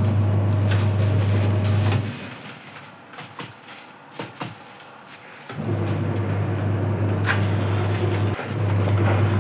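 Washing machine motor running with a steady low hum as it churns the liquid soap mixture. It stops about two seconds in, leaving a few light knocks, then starts up again a few seconds later.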